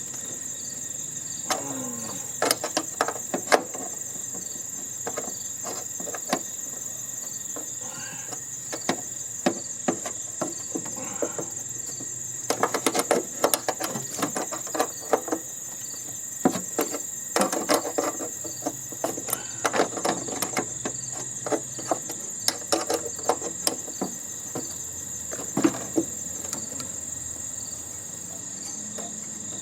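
Hand tools clicking and knocking against the metal of a heating and air-conditioning unit being dismantled, in several runs of rapid clicks, over a steady high-pitched chirring of insects.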